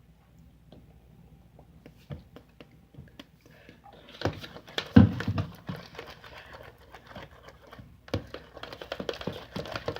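Homemade slime being stirred and handled, giving a dense run of sticky clicks and squishing crackles that starts about four seconds in, pauses briefly near eight seconds, then carries on.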